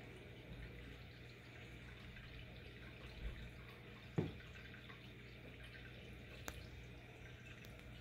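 Faint water sounds in a turtle aquarium: a few small drips and splashes at the water's surface, the loudest a single plop about four seconds in, over a steady low hum.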